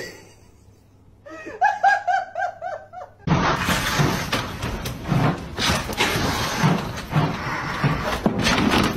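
A person laughing in a quick run of about seven short bursts, followed by loud, noisy sound with irregular low thumps.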